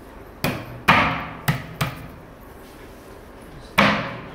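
Five sharp knocks on the wooden top panel of a flat-pack side table, struck by hand to seat the panel in its groove on the side panels. Three come close together in the first two seconds, then one more, among the loudest, near the end.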